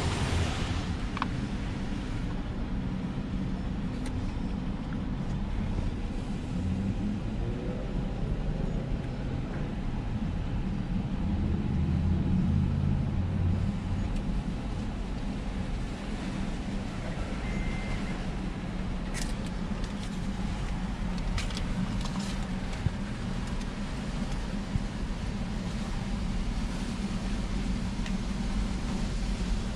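Car engine idling, heard from inside the cabin as a steady low hum, with a few faint clicks near the middle.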